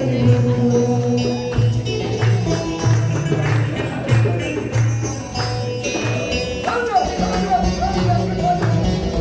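Live Turkish folk music on bağlama, with darbuka and frame drums keeping a steady, repeating beat and hands clapping along.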